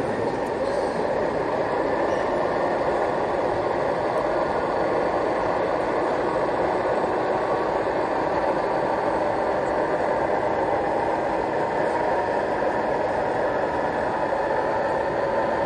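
Steady, even hubbub of a crowded exhibition hall, with no single voice or machine standing out.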